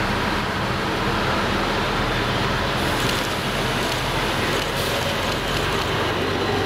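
Diesel engines of ALn 663 railcars running as one railcar rolls into the station on the near track and draws close, a steady low engine rumble with mechanical noise, while a second railcar stands at the platform.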